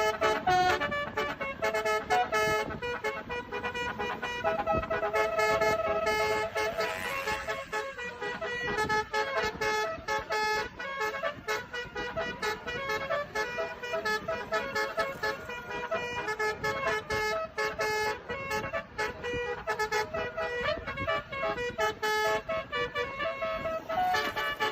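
Basuri multi-tone bus horn ('telolet' horn) playing a melody of quick honked notes at several pitches, with one longer held note about five seconds in.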